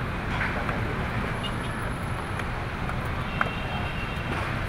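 Steady road traffic noise, a rumble from passing vehicles.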